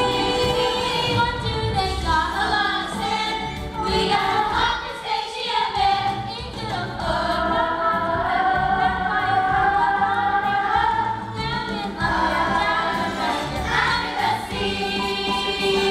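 Stage musical cast singing together in chorus with musical accompaniment, in held, sustained notes.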